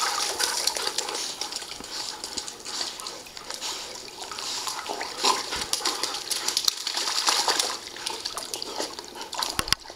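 Pool water splashing and sloshing as dogs swim and wade on the pool's entry steps, in uneven little splashes.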